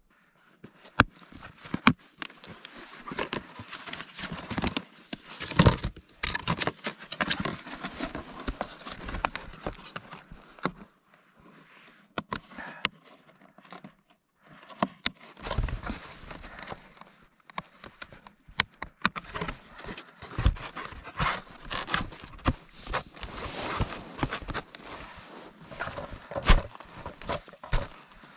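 Plastic packaging and gear being handled at close range: rustling and crinkling with many sharp clicks and knocks, easing off briefly twice around the middle.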